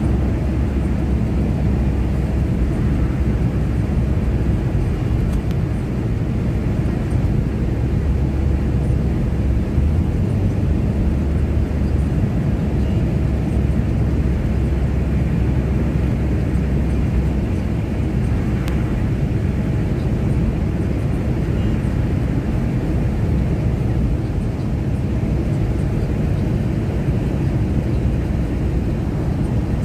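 Steady low rumble of a car driving through a road tunnel, with tyre and engine noise heard from inside the cabin.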